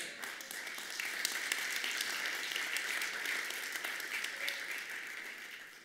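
Congregation applauding, a steady patter of many hands clapping that fades out near the end.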